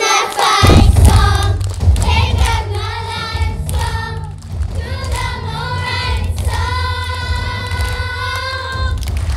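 Children singing a song as a group, a girl's voice leading over a microphone, over backing music whose strong bass comes in just under a second in. Several long held notes come near the end.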